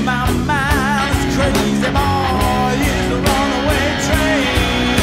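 A hard rock band plays: distorted electric guitar, bass and drums, with a held note wavering in wide vibrato near the start.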